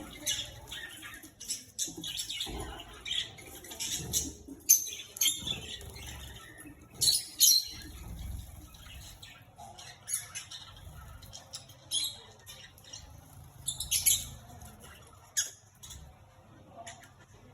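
Aviary birds chirping and squeaking in quick, irregular high calls, with a few louder squawks and some wing flapping.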